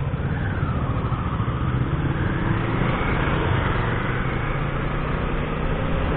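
Kawasaki ER6n's parallel-twin engine running steadily as the motorcycle rides at low speed, under wind and road noise.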